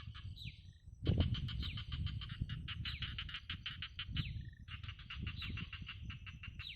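Calling animals: runs of rapid pulsed calls, about seven a second, lasting two to three seconds each with short breaks, and a few short falling whistles mixed in, over a low rumble.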